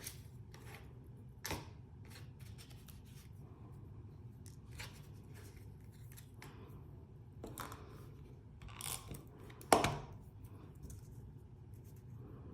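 Small cut paper pieces being handled and set down on cardstock: scattered light rustles and taps, with one sharper tap a little under ten seconds in.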